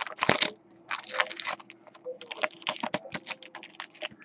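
Foil trading-card pack wrapper being torn open and crinkled by hand: a quick series of crisp crackles and rips, loudest in the first second and a half and thinning out after that.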